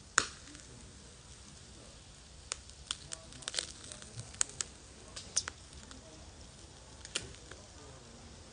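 Charcoal fire in a shichirin grill crackling and popping under grilling chicken wings, with sharp irregular pops. One loud pop comes just after the start, a quick cluster in the middle, and one more near the end.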